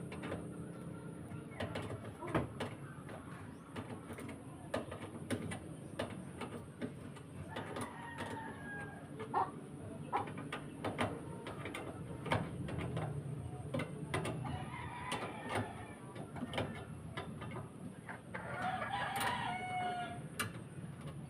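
A rooster crowing twice, about eight seconds apart, over scattered light clicks and knocks.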